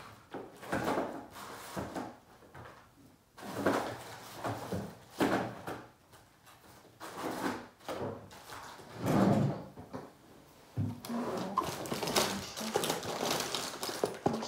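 Rummaging through an open desk drawer: irregular rustling of plastic bags and small knocks of items being moved, in short bursts with pauses between.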